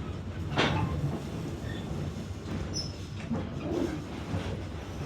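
Narrow-gauge railroad passenger car rolling along the track: a steady low rumble of wheels on rail, with a sharp clack about half a second in and a lighter one past three seconds from the wheels crossing rail joints.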